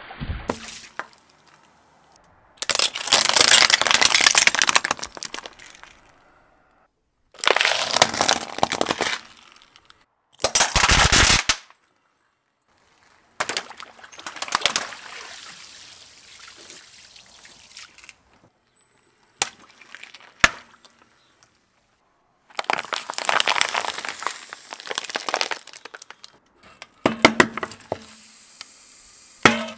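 A car tyre rolling over and crushing rows of objects (drink cartons, water balloons, aluminium drink cans) in a series of separate crackling, cracking and bursting episodes, each a few seconds long, with short silences between them. One sharp click stands out about twenty seconds in.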